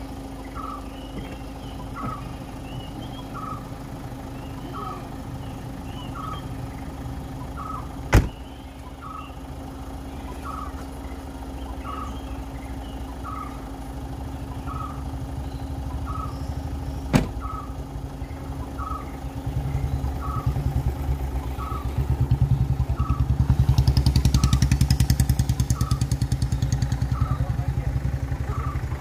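Ford EcoSport idling with a steady hum, a short beep repeating about once a second. A car door slams shut about eight seconds in and another about nine seconds later. The engine then grows louder as the car pulls away.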